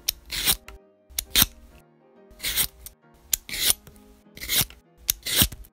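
Vegetable peeler scraping the skin off a sweet potato in about six quick strokes, roughly one a second, each a click followed by a short rasp. Light background music plays underneath.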